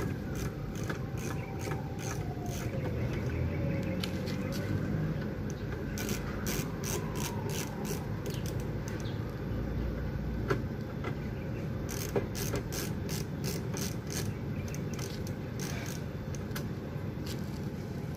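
Light clicks and rattles of hands handling a Daikin air conditioner's outdoor unit, coming in clusters about six and twelve seconds in, over a steady low background rumble.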